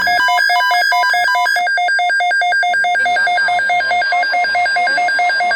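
Electronic alert alarm of a weather alert receiver: a loud, rapid pulsing beep, about eight a second, that cuts off suddenly near the end.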